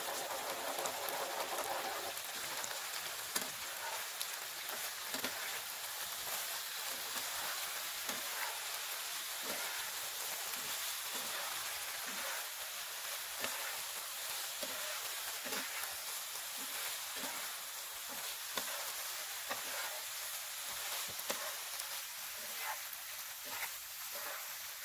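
Penne pasta and egg sizzling in a frying pan, with a spatula stirring it and scraping the pan every second or so.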